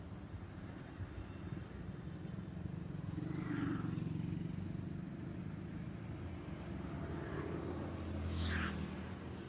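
Low, steady rumble of road traffic, swelling twice as vehicles pass.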